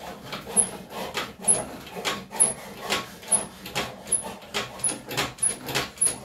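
A 50cc mini chopper's kickstarter being kicked over again and again, about eight strokes coming a little faster toward the end, each with a short high squeak. The engine does not catch, a sign of fuel not getting through a filthy carburettor.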